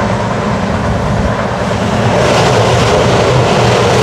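LHB passenger coaches of an express train running at speed: a dense, steady rush of wheel, rail and wind noise, growing louder about halfway through.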